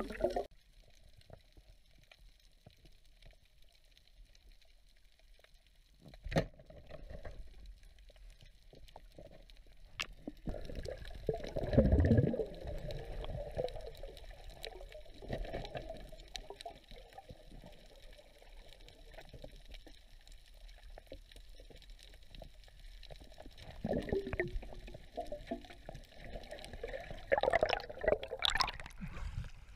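Underwater sound through a camera housing: a muffled, quiet water bed with scattered clicks. About twelve seconds in comes a loud, dull low rush as the spear is driven into the seabed. Near the end there is louder sloshing and splashing as the diver reaches the surface.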